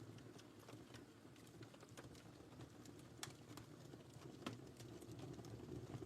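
Wood fire crackling faintly: a steady low rush of burning with scattered sharp pops, the clearest a little after three seconds in and another about four and a half seconds in.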